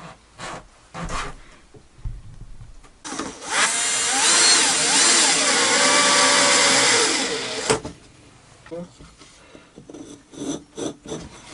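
Power drill boring a hole into a small wooden box for about five seconds, its motor whine wavering in pitch as the bit cuts, then stopping sharply. A few knocks before it and light clicks after it come from the wooden pieces being handled.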